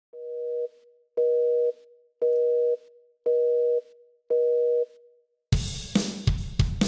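Five beeps of a telephone busy signal, two steady tones sounding together about once a second. A heavy metal band with drum kit and cymbals crashes in about five and a half seconds in.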